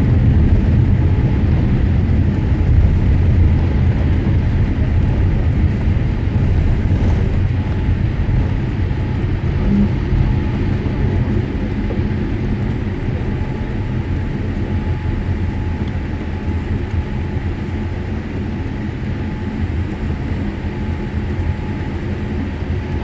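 Airliner cabin noise: a loud low rumble of the jet rolling down the runway after touchdown, slowly fading as the aircraft decelerates.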